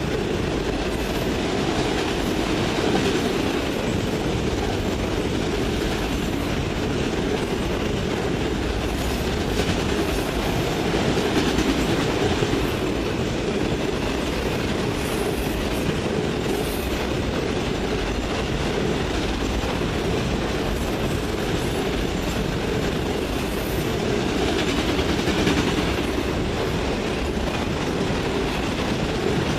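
Freight train cars rolling steadily past, the wheels clicking and rumbling over the rail.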